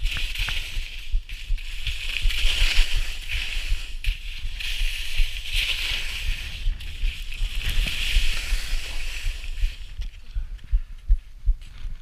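Skis scraping and hissing across snow through a run of turns, the hiss swelling with each turn about every two to three seconds, over wind buffeting the microphone. It dies down near the end as the skier slows.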